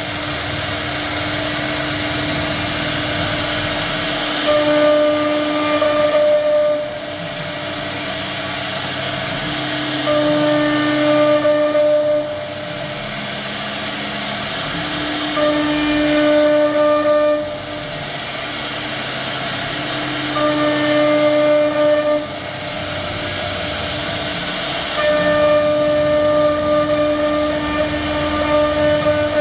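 CNC router spindle whining at a steady high speed, with a constant pitch. It grows louder for about two seconds roughly every five seconds as the bit cuts through the door panel.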